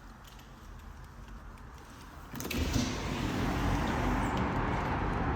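Quiet room tone, then about two seconds in a balcony door opens with a brief click and steady street traffic noise comes in and stays.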